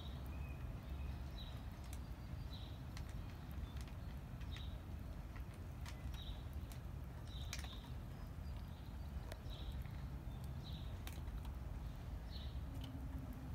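Cat crunching dry cat food: scattered small sharp crunching clicks over a steady low rumble, with a short high chirp repeating roughly once a second.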